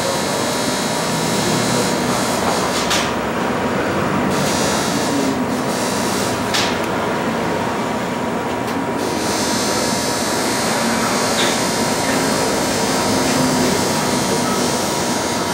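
Steady machine hiss and hum from a micro laser welding station at work, with a thin steady tone through it; the high part of the hiss thins out briefly several times.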